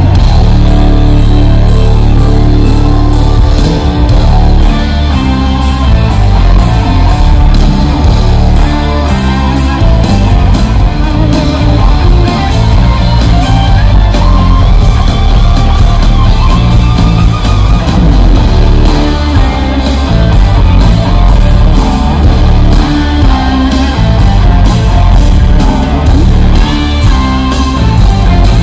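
Live rock band playing an instrumental jam, very loud: electric guitars and bass over keyboards and a steady, hard-hit drum beat.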